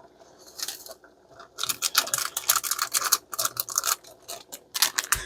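Miso soup topping packet being opened and emptied into the pot: rapid bursts of scratchy rustling, densest from about one and a half seconds in.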